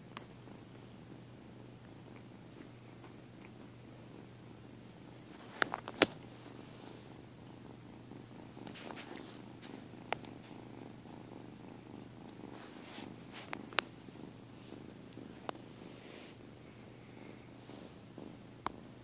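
A cat purring steadily. A few sharp clicks cut through it, the loudest pair about six seconds in, with single ones at several later points.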